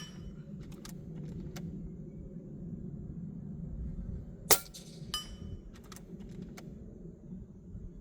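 A single shot from a Hatsan Factor Sniper Long PCP air rifle, a sharp crack about halfway through, with a few light metallic clicks shortly after it and around a second in.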